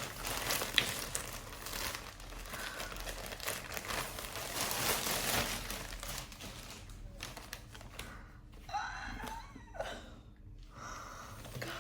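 Plastic mailer bag and packaging crinkling and rustling, with some tearing, as a clothing parcel is opened and unpacked; busiest in the first half, quieter later.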